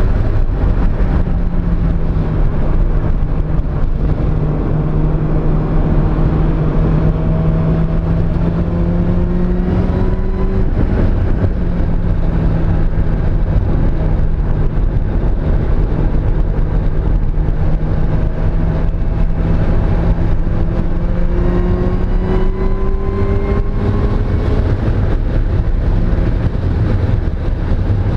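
Mazda Miata inline four-cylinder engine pulling under load on a track, its pitch climbing slowly and then dropping twice, about a third of the way in and again later, over heavy low road and wind rumble. The car has a misfire on cylinder 2.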